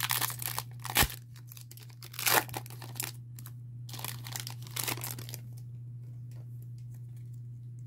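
Foil wrapper of a Pokémon trading card booster pack being torn open and crinkled: a run of tearing and crackling with a couple of sharp rips, then only faint rustling for the last few seconds.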